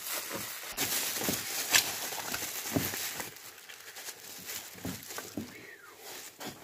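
Rustling and crinkling of bubble wrap and foam packaging, with a cardboard box being handled and scattered light clicks and knocks.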